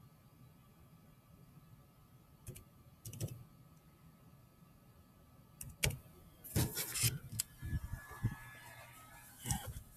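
Computer keyboard keys clicking in short, irregular clusters as a serial number is typed in.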